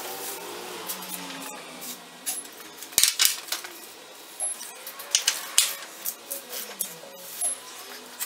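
Metal clicks and clinks of a long wrench and socket working the front subframe bolts while they are torqued down. The loudest is one sharp click about three seconds in, followed by several lighter clinks.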